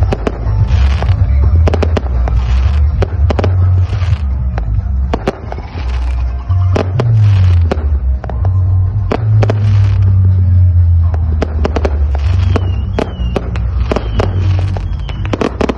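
Aerial fireworks and firecrackers going off, with many sharp bangs in quick, irregular succession. Underneath runs the heavy bass of a loud sound system playing music.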